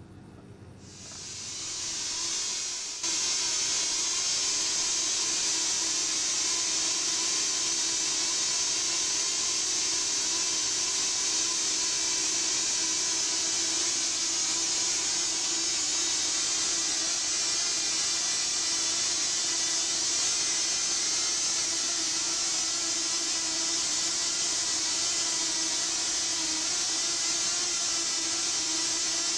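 Several tiny Cox Tee Dee .010 two-stroke glow engines running flat out together, a steady, high-pitched, drill-like whine. It swells over the first few seconds, jumps up about three seconds in, then holds steady.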